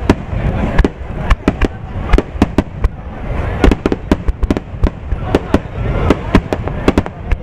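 Fireworks display: aerial shells bursting in a rapid, irregular run of sharp bangs, about three a second, over a continuous low rumble.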